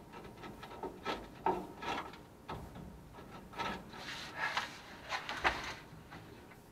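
Hand tools working the rusty leaf-spring hardware under an old pickup: a run of irregular scraping and knocking strokes, most of them close together about four to five and a half seconds in.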